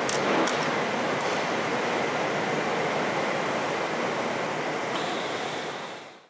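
Steady rushing noise of a glassblowing studio's furnaces, including the glory hole used to reheat the glass, with a few sharp metal clinks in the first half second as the steel blowpipe is worked at the bench. The noise fades out near the end.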